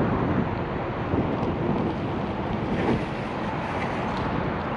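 Wind buffeting the microphone: a steady, rushing noise.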